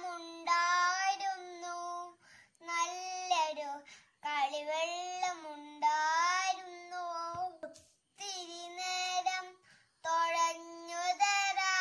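A young kindergarten child singing a song alone, in short phrases of a second or two with brief pauses, with no accompaniment.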